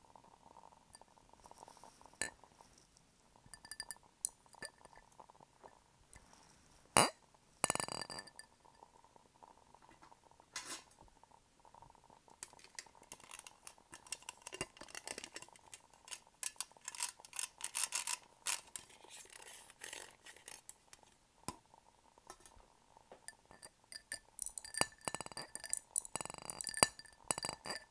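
Tapping and clinking on glass candle jars, scattered at first and then in quick, dense runs, with two louder clicks about seven and eight seconds in.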